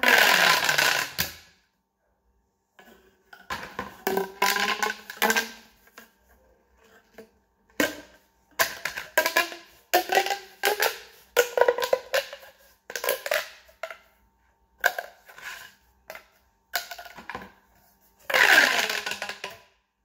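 Plastic pop tubes (corrugated, ribbed fidget tubes) being stretched, bent and pushed together, popping and crackling in a series of short bursts; the loudest come at the start and near the end.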